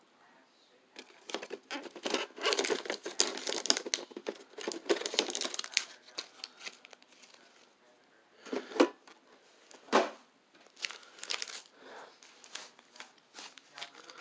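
Crinkling and rustling of Pokémon card packaging and booster pack wrappers being handled, with two sharp knocks about a second apart near the middle.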